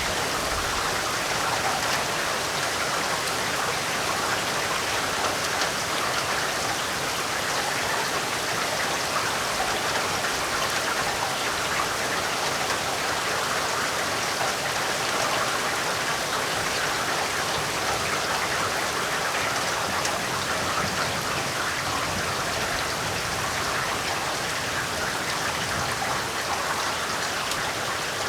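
Heavy rain falling steadily: an even, unbroken hiss of countless drops.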